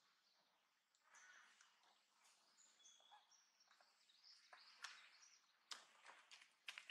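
Faint outdoor ambience of small birds chirping in short high notes, with a few brief sharp clicks or rustles.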